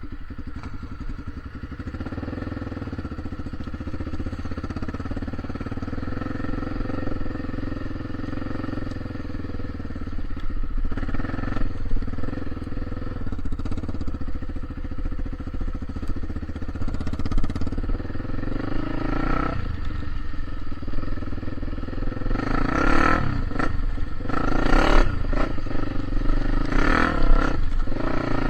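A vehicle's engine running under way, steady at first, with louder surges and clatter in the last third.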